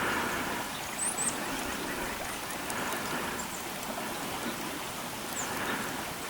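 Outdoor winter ambience: a steady rushing hiss, with a few short, high bird-like chirps about a second in and again near the end.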